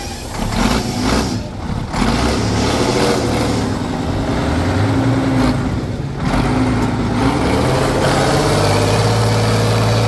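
Off-road trial truck's engine revving up and down in several slow sweeps under load as the truck crawls through a steep ditch.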